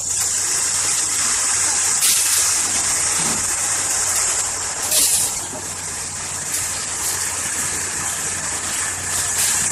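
Tractor diesel engine running steadily at idle under a loud, continuous high hiss, with a few brief swells in the hiss.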